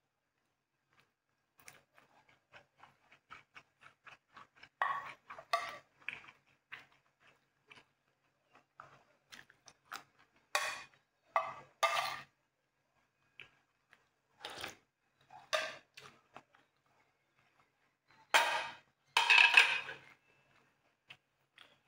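A metal spoon and fork clinking and scraping against ceramic plates and a bowl: a run of light clicks, then a series of louder short scrapes and clinks, the loudest near the end.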